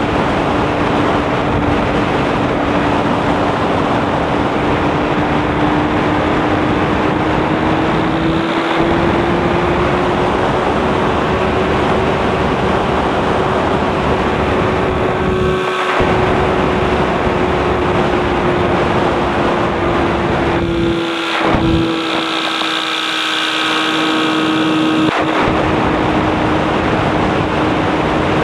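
Light aircraft's engine and propeller droning steadily in flight with heavy wind and airframe noise. The engine note rises a little and settles back. For a few seconds near the end the low rumble drops away under a brighter sound.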